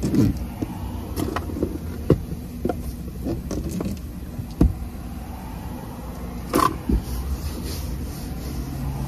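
Car interior being cleaned by hand: a towel wiping over the dashboard and items being picked up and set down, giving sharp knocks and clicks every second or so over a steady low rumble in the cabin. Two knocks come close together near seven seconds in.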